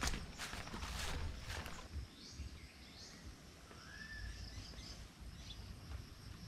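Footsteps through thick undergrowth on a jungle path for about two seconds, then faint bird chirps and insects, with one short bird call about four seconds in.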